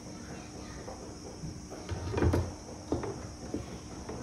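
Knocks and clunks of hand tools being handled, the loudest a heavier thud about two seconds in, followed by a couple of lighter knocks.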